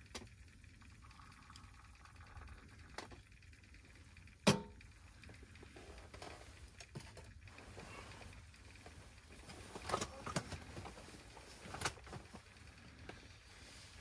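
Faint handling noises: light clicks and knocks from a spoon stirring in a wooden cup, with one sharp knock that rings briefly about four and a half seconds in. Near the end a few more clicks and knocks as the cup is set down on the camp table and a camp chair shifts.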